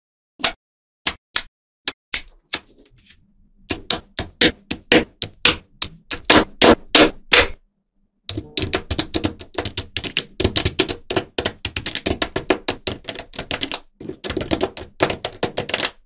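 Small magnetic balls clicking as they snap together: a few single clicks, then fast runs of clicking as rows of balls are pressed into place, with short pauses about halfway through and near the end.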